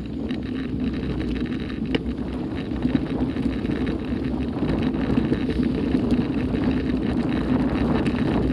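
Steady rumble and wind buffeting on a mountain-bike rider's camera microphone as the bike rolls along a gravel dirt track, with one sharp click about two seconds in.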